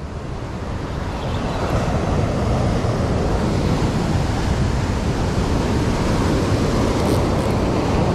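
Heavy sea surf rushing and breaking against a rocky shore, a steady loud wash of water that swells up over the first second or two.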